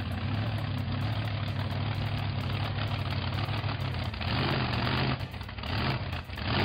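An engine running steadily, with a low hum under a rushing hiss that grows louder about four seconds in and again near the end.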